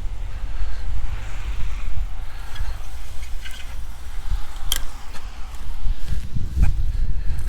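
Wind buffeting the microphone, a loud, uneven low rumble, with a sharp click about two-thirds of the way through.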